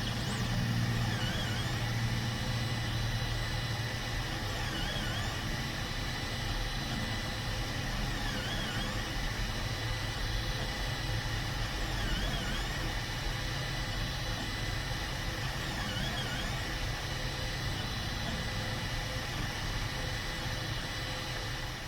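Formlabs resin 3D printer running mid-print: a steady hum and whir with high fixed tones, and a short dip-and-rise in pitch that comes back about every three and a half to four seconds.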